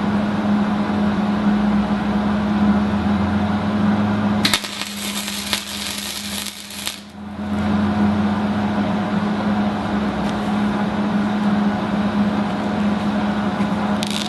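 Wire-feed welder laying a practice bead: a steady electrical hum under a continuous crackling arc, with a sharper, brighter crackle for a couple of seconds about four and a half seconds in. The welder is turned up to voltage 3 and wire speed 40 after earlier attempts with too little heat.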